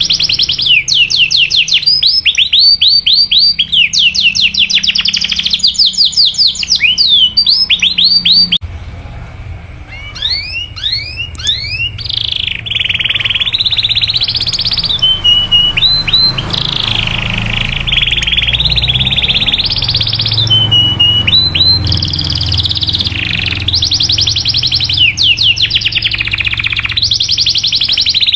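Domestic canary singing: fast runs of rapid rising chirps and long rolling trills, high-pitched. The song dips quieter briefly about nine seconds in, then resumes with more trills.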